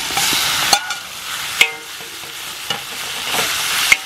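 Raw sliced steak sizzling as it goes onto a hot steel discada disc (cowboy wok) already frying pork and bacon, while a metal spatula stirs it, scraping and clinking sharply about four times.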